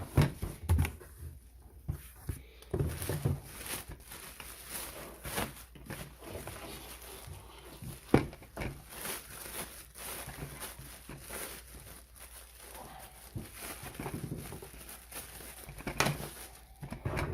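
Hands handling a new humidifier and its packaging: irregular plastic clicks, knocks and rustling, with one sharper knock about eight seconds in.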